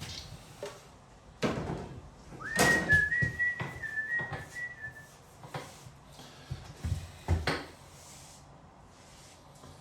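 A person whistling a short tune of a few notes, about a third of the way in, among knocks and rustling from the wallpapering work.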